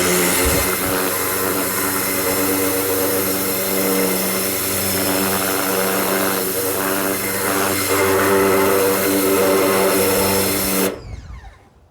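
Ryobi 1600 PSI electric pressure washer running with the trigger held: a steady motor-and-pump hum over the hiss of the water jet. It stops about a second before the end, the motor spinning down.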